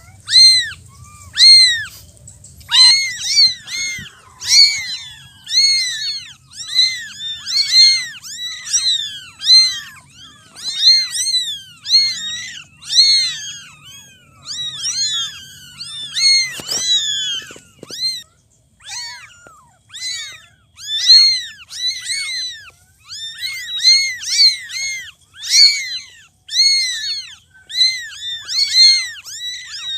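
Cats meowing over and over: short, high-pitched meows, about one or two a second, with several calls overlapping in the middle.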